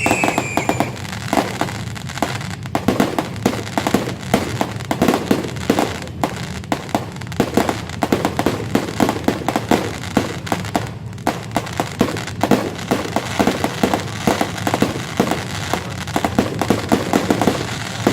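Fireworks going off in a rapid, irregular barrage of bangs and crackles. A high, wavering whistle dies away in the first second.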